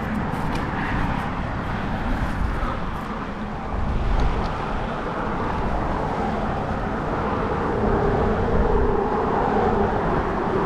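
Steady road traffic noise on a highway bridge, with a low rumble throughout; a steadier hum comes in about two-thirds of the way through.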